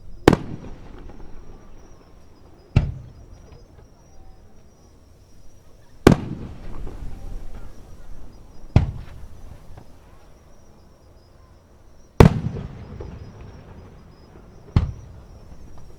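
Aerial fireworks shells bursting: six sharp booms with a rumbling tail, in three pairs about six seconds apart, each loud bang followed about two and a half seconds later by a softer one.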